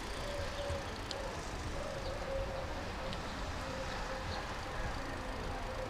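Steady street background noise: a low rumble of traffic with a faint wavering hum.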